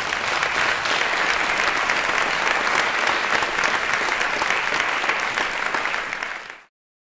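Audience applauding, a dense patter of many hands clapping, which cuts off suddenly near the end.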